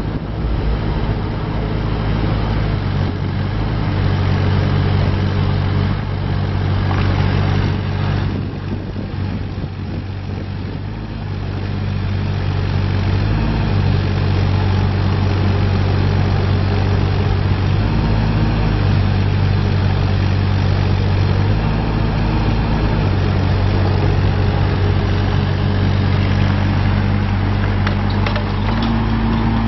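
Terex TC16 mini excavator's diesel engine running steadily, its note stepping up and down in pitch several times and dropping in loudness for a few seconds about a third of the way through.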